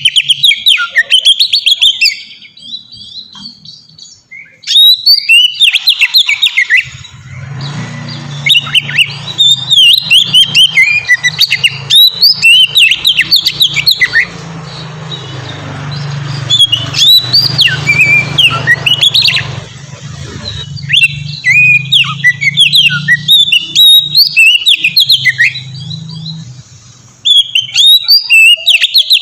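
Oriental magpie-robin (kacer) singing a long, loud run of rapid, varied whistles and chirps, broken by short pauses near the start and near the end. A low steady hum sits under the song through much of the middle.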